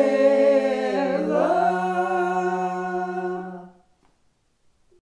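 Women's voices singing a cappella in traditional Podlasie village style, holding the drawn-out final chord of the song. The upper voices slide up about a second in, and the chord stops just under four seconds in.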